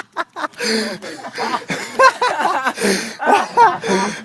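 People laughing and calling out excitedly, their voices rising and falling in short bursts.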